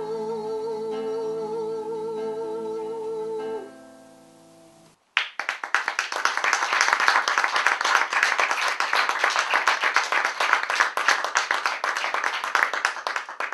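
A woman's voice holds the song's final note with vibrato over strummed acoustic guitar, dying away about four seconds in. After a moment of silence, audience applause breaks out suddenly and goes on steadily.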